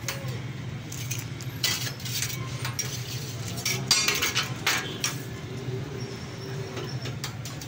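Clinks and scrapes of a long metal knife and spatula against a flat steel griddle as toasted buns are shifted about, loudest around four seconds in, over a steady low hum.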